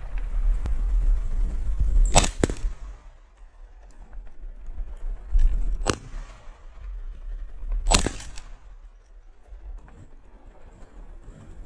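Shotgun shots from two hunters firing at the same birds: a pair in quick succession about two seconds in, then two single shots, one near the middle and one a couple of seconds later.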